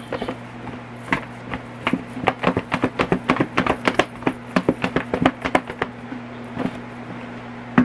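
Chicken wings knocking and thudding around inside a plastic breader shaker bowl as it is shaken hard to coat them in flour breading, in rapid knocks about three or four a second. The shaking thins out to a few scattered knocks after about five seconds.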